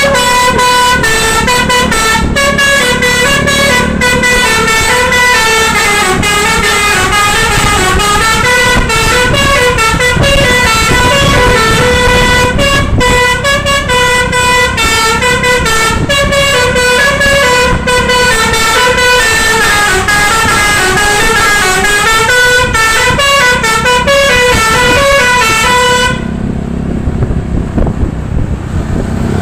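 Indonesian bus 'telolet' Basuri multi-tone horn playing a long, loud melody of stepping tooting notes, cutting off suddenly about 26 seconds in and leaving a low rumble.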